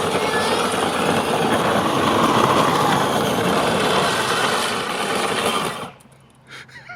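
Upgraded Power Wheels ride-on car being driven hard: its electric drive motors whine and its hard plastic wheels grind and scuff on the ground. The noise fades out just before six seconds in as the car stops.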